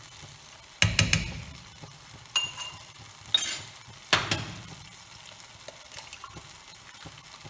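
A metal spoon clinking and knocking against a steel frying pan about five times in the first four seconds, some strikes ringing briefly. A tomato and onion sauce simmers faintly underneath.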